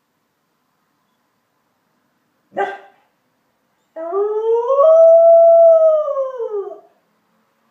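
A dog gives one short bark, then a single long howl of about three seconds that rises in pitch, holds and falls away.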